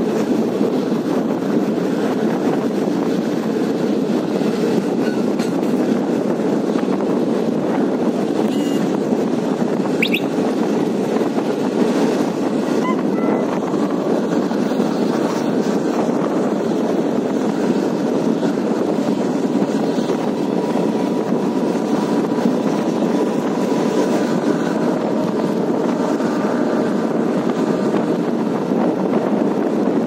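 Passenger train running steadily at speed, heard from beside the coaches: a loud, even rumble of wheels on track mixed with rushing air.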